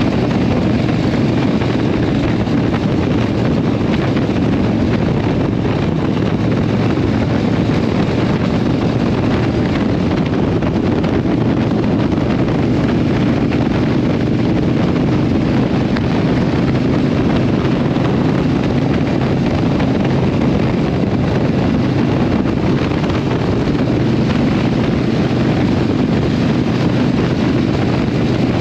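Harley-Davidson Iron 883 Sportster's air-cooled V-twin running through a Vance & Hines exhaust at a steady cruise of about 45 mph, speed creeping up slightly, with wind rush on the microphone.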